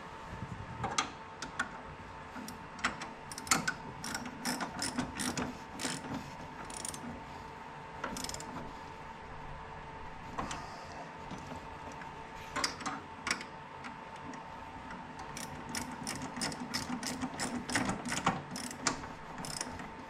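Socket ratchet wrench clicking in short runs of rapid clicks, densest near the end, over a steady faint hum.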